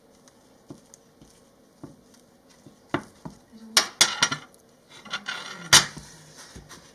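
A knife and other kitchen items handled and set down on a wooden cutting board: faint small taps at first, then a run of sharp clinks and knocks in the second half, the loudest about a second before the end.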